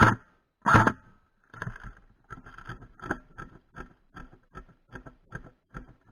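Airsoft electric gun (AEG) firing two short bursts close to the microphone in the first second. After that comes a steady run of soft thuds, about two and a half a second, that slowly grow fainter.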